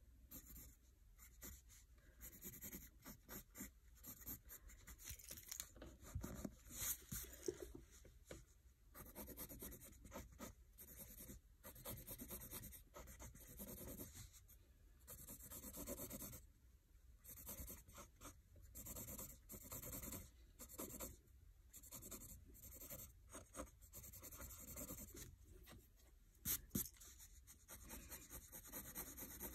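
Faint scratching of a pencil on lined notebook paper in quick back-and-forth shading strokes, coming in short runs with brief pauses between them.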